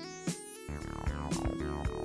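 Background music: an electronic track with synthesizer and plucked notes over a steady beat.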